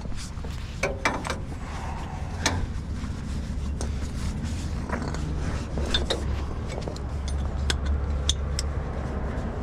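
Truck engine idling with a steady low rumble, with scattered sharp metallic clicks and clinks over it.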